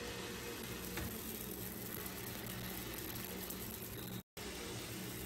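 Faint, steady sizzle from a hot, oiled flat griddle as pancake batter drops onto it from a batter dispenser, with a short break about four seconds in.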